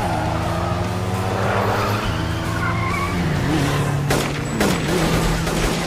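Motorcycle and car engines running steadily at speed in an animated chase, with skidding tyre squeals. Two sharp cracks come a little after four seconds in.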